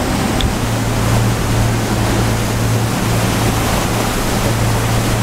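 Motor yacht under way: water rushing and spraying along the hull over a steady low engine drone.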